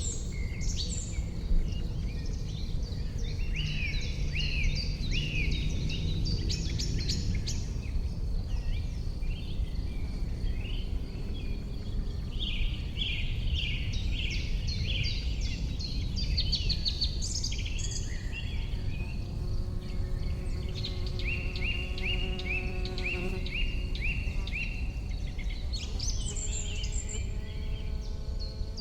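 Many small birds singing and chirping at once over a steady low rumble. About two-thirds of the way in, an insect buzzes with a steady hum for a few seconds, then again near the end.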